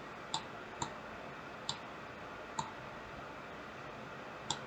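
Computer mouse clicking: five single, short clicks at uneven intervals over faint room hiss.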